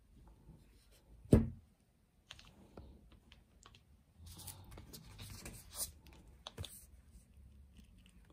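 Handling noise of a compact camera being set down on a cloth-covered table, with one sharp knock about a second and a half in. Later, scattered light clicks and rustling as packaging is picked up and handled.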